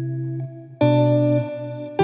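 Background music: slow, sustained guitar chords, the first dying away about half a second in and a new chord struck just under a second in.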